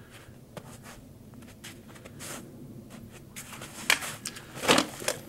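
Sword cuts at a bottle target: two short, sharp strikes about four and four and three-quarter seconds in, with faint rustling and shuffling before them.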